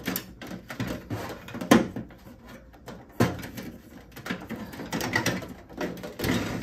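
Flexible plastic drawer-runner strip being pressed and snapped into the grooves of a sheet-metal drawer cabinet: irregular clicks and knocks about every second, with rustling handling noise between them.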